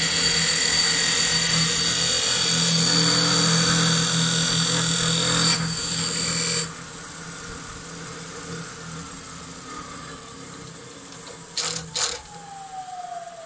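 Wood lathe running while a knife parting tool cuts through a small turned spindle: a steady cutting hiss over the motor's hum for about six seconds, then the cut stops. The lathe's whine then falls steadily in pitch as it spins down, with two sharp knocks near the end.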